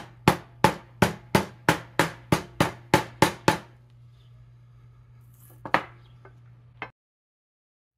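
Plastic-faced mallet striking the old oil-pump drive gear to knock a Porsche 944 oil pump out of its housing: about a dozen sharp blows at about three a second. A few lighter clicks follow near the end.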